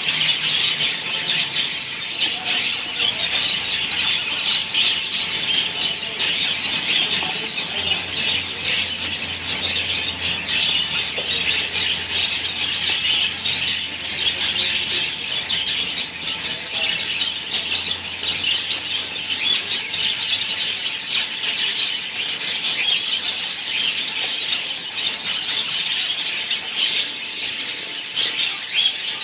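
Flock of caged Gouldian finches, with some diamond firetails among them, chattering: a dense, unbroken mix of short high chirps and calls, with a wing flutter now and then.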